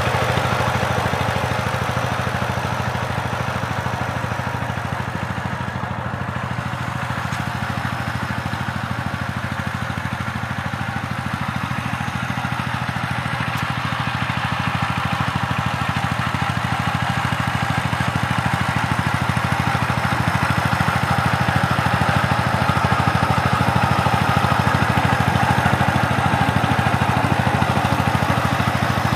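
The single-cylinder diesel engine of a two-wheel power tiller runs steadily while the tiller works through ploughed soil. It gets a little louder over the second half.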